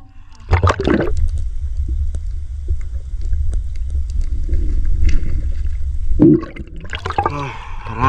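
Water gurgling and sloshing right at the microphone, with a steady low rumble and scattered small clicks, as heard from a camera under water.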